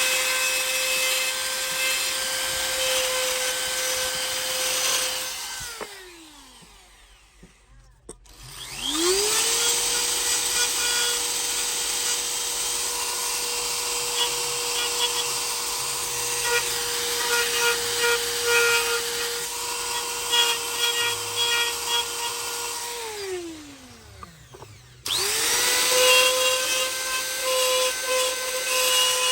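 High-speed electric power tool working wood. Its motor runs at a steady high whine under a rough cutting and rubbing noise. It winds down with a falling pitch about six seconds in and again about twenty-three seconds in, each time spinning back up a couple of seconds later.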